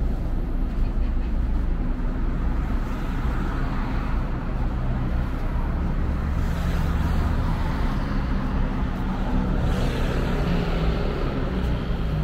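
City street traffic: cars driving past with engine hum and tyre noise, swelling louder about six seconds in and again about ten seconds in.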